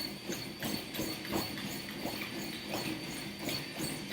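Running footfalls on a treadmill belt, a steady beat of about three strides a second during a hard push interval.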